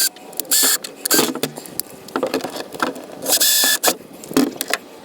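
Power drill boring pilot holes into the plastic lip of an RV storage bucket, run in two short bursts of about half a second each, its whine spinning up at the start of each. Small clicks and knocks between the bursts.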